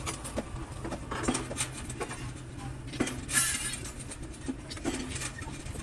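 Steel rebar clinking and knocking as a grid of ribbed reinforcing bars is handled and adjusted by hand: a scatter of short metallic clinks at irregular intervals, over a steady low hum.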